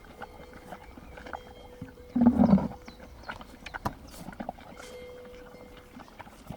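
An equine gives one short, low vocal sound about two seconds in. Faint scattered clicks and knocks run around it.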